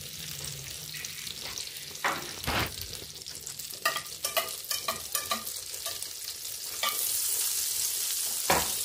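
Butter and a little oil sizzling as the butter melts and foams in a nonstick frying pan, with scattered taps and scrapes of a wire whisk moving the butter around. The sizzle gets louder about seven seconds in.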